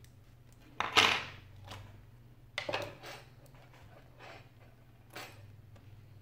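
Hard clicks and clatter of a Samsung N8000 tablet's parts and repair tools being handled and set down on a wooden desk: a louder knock about a second in, another near three seconds, then a few lighter taps.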